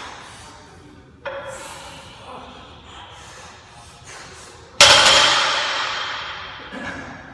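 A barbell loaded with 265 lb of iron plates clanks about a second in as it comes off the floor in a deadlift. About five seconds in it clangs loudly as it is set back down, and the plates ring and die away over a couple of seconds.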